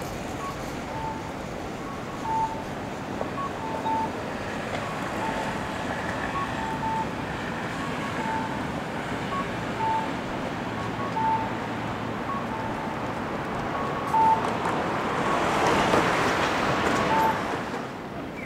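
City street traffic noise, with a vehicle passing about fifteen to seventeen seconds in. Faint short electronic beeps at two pitches repeat irregularly throughout.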